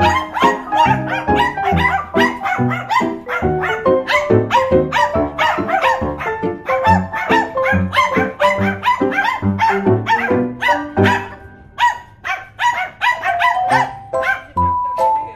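Several Shih Tzus barking, with background music playing over them.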